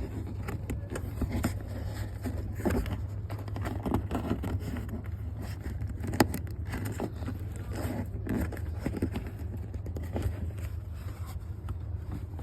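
Hand work on engine-bay parts: scattered clicks, knocks and scrapes of tools and loosened components being worked free, the sharpest knock about six seconds in, over a steady low rumble.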